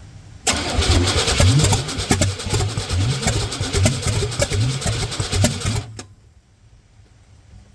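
The starter cranks the 1988 K1500 pickup's engine for about five seconds, and the engine turns over without catching. It then stops abruptly. This is a no-start caused by the distributor being set too far advanced, with the rotor not pointing at the number-one plug wire.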